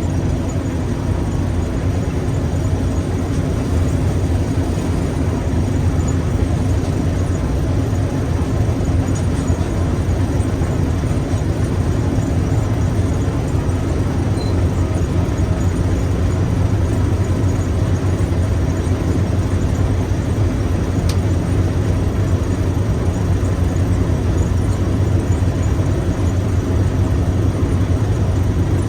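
Combine harvester running steadily: a constant low engine and machinery drone that holds level throughout.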